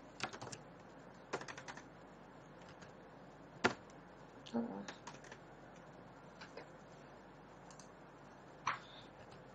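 Faint computer keyboard typing and clicks: a few short runs of keystrokes, with two single sharper clicks, one just before four seconds in and one near the end.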